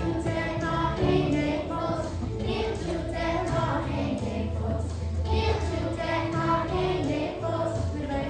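A group of young schoolchildren singing a song together in unison, over musical accompaniment with a steady bass line.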